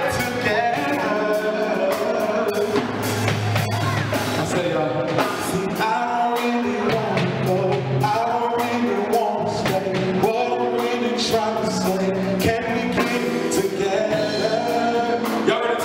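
A man singing into a handheld microphone over live band music with drums and keyboards.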